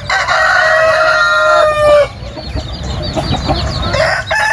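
Fighting roosters crowing: one long crow of about two seconds at the start, and another shorter crow beginning near the end, with clucking and chirping from other birds in between.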